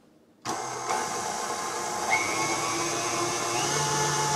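KitchenAid Artisan stand mixer starting up about half a second in and running steadily at high speed, a motor whir with a faint whine, its flat beater whipping chocolate buttercream icing in a stainless steel bowl.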